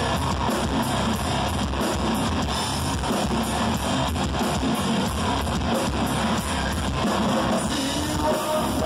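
A rock band playing live, with electric guitars, bass guitar and drums at a steady, loud level.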